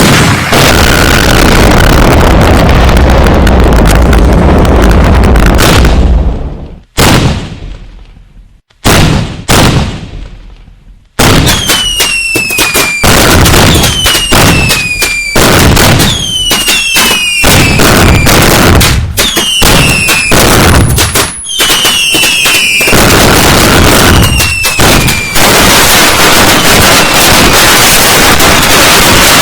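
Fireworks going off loud: first a dense, continuous barrage of bangs and crackle, then a few separate booms. Then comes a run of whistling shells, their whistles falling in pitch among the bangs, before it builds back into a dense barrage near the end.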